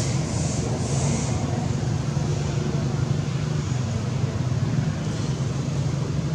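Steady low rumble of road traffic with a constant low hum, and three brief high hisses in about the first second and a half.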